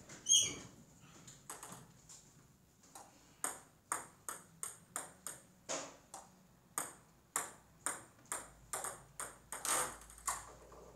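Celluloid-type table tennis ball being struck by paddles and bouncing on the table, a run of sharp clicks about two to three a second, with one louder hit right at the start.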